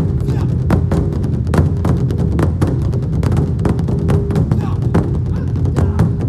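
Korean traditional percussion ensemble, large barrel drums among them, playing an amplified driving rhythm of sharp strokes several times a second over a steady low bass.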